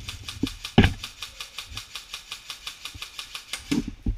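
Airsoft gun firing a long, steady string of rapid shots, about seven a second, with a louder knock about a second in and again near the end.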